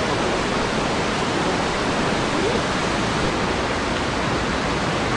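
Steady rushing of a fast mountain river, an even noise without breaks.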